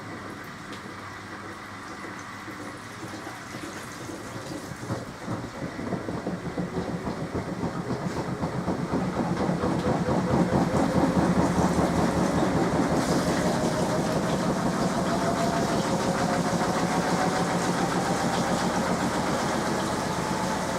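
SMEG 11 kg front-loading washing machine's drum speeding up into a spin: a fast rhythmic churning that grows louder over the first half, then holds while the motor's whine rises steadily in pitch.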